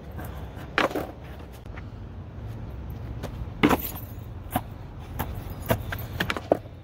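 Skateboard knocking and slapping on concrete: a string of sharp, irregular clacks as the board is popped and landed, the loudest about a second in and again near the middle, over a steady low rumble.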